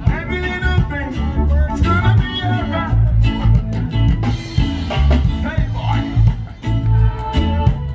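A song playing: a singing voice over a heavy, steady bass beat.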